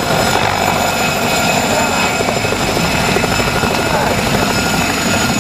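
Mi-2 helicopter close by, hovering low and settling to land: the rapid chop of its main rotor over the steady whine of its twin turbine engines.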